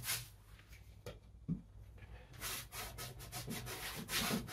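A worn one-inch flat brush scrubbing oil paint onto canvas in short, quick repeated strokes, several a second, which start after about two seconds of near quiet.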